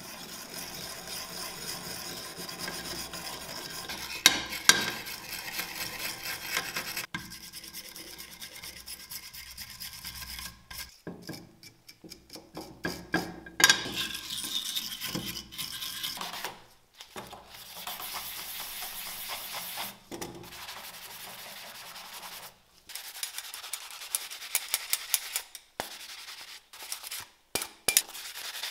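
Wire brush scrubbing softened paint off a die-cast metal model car body, in fast rasping strokes broken by short pauses, with a few sharp clicks, more of them near the end.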